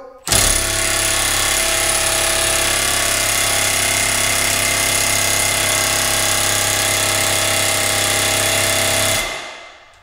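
Milwaukee cordless impact wrench hammering steadily for about nine seconds on the piston nut of a hydraulic cylinder rod, then stopping. The Loctited nut does not break loose.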